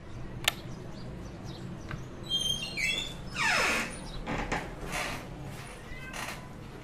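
Ambience with a steady low hum and birds chirping in short high calls. There is a sharp click about half a second in, and a loud whoosh that falls in pitch about three and a half seconds in.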